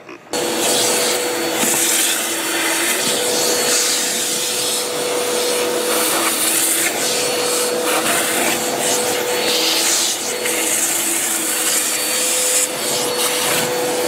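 Bissell ProLifter Swivel Pet Pro upright vacuum running steadily, drawing air through its hose attachment as the nozzle works along a carpet edge at the baseboard: a steady motor whine with rushing-air hiss, one strand of its hum wavering slightly now and then.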